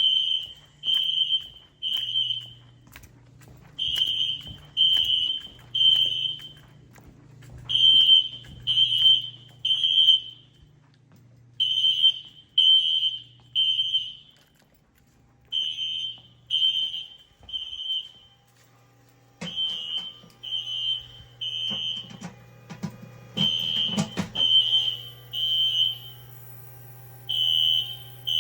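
Fire alarm sounder beeping a high-pitched tone in the temporal-3 (Code 3) evacuation pattern: three beeps, a pause, repeating about every four seconds. About twenty seconds in, a few seconds of knocking and rattling sound over it, and a low hum runs beneath.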